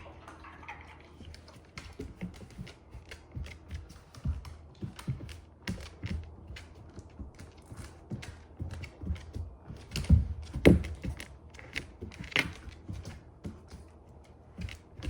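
A Labrador walking on a hard floor: its claws click and its paws tap in an irregular patter, with a few louder knocks about ten seconds in and again two seconds later.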